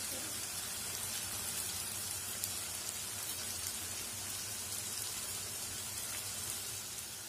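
Chopped onions frying in hot mustard oil in a kadai: a steady, even sizzle with faint crackles.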